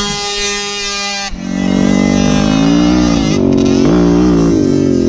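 Dirt bike engine held at steady high revs, cut off abruptly about a second in. A lower note then rises and falls over and over.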